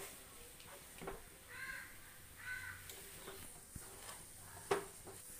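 A wooden spatula stirring and pressing a thick coconut ladoo mixture in a non-stick pan, with a few light knocks against the pan, the sharpest just under five seconds in. Two short bird calls sound in the background, about a second and a half and two and a half seconds in.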